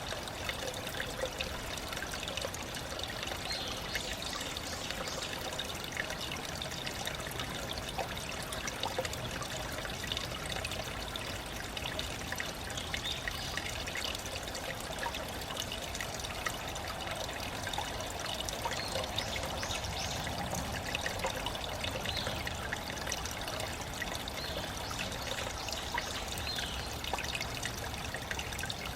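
Small mountain stream trickling and splashing over rocks, a steady flow with many small splashes.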